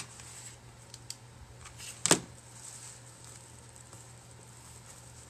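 A hard object knocks once on a tabletop about two seconds in, sharp and loud, after a click and a couple of faint ticks of handling. A steady low hum runs underneath.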